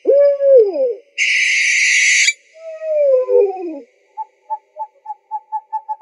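Owl calls: a falling pitched hoot, then a loud harsh hissing screech about a second in, a second falling call, and from about four seconds a run of short pipping notes that come faster and faster.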